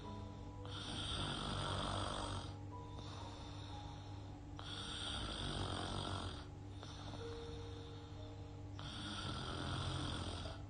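A girl snoring through her open mouth as she sleeps, three snoring breaths about four seconds apart. Soft background music plays with steady held notes under the snoring.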